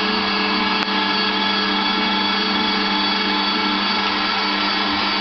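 Zelmer 986 electric meat grinder running steadily: an even motor hum with many overtones, with a brief click about a second in.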